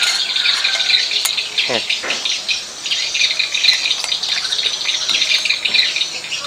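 Insects chirping in a dense, steady high-pitched chorus that pulses rapidly.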